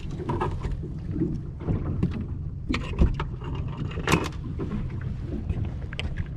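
Steady low rumble of a small fishing boat, with scattered knocks and rustles of handling on the deck; the sharpest knocks come about three seconds in and just after four seconds.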